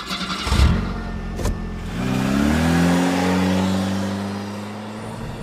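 Toyota Coaster minibus engine pulling away: its pitch climbs for about a second, then holds steady while slowly fading.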